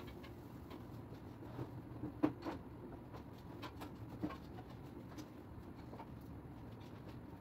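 Faint clatter of kitchen items being picked up and put away on a table, with a sharp knock about two seconds in and another just after it.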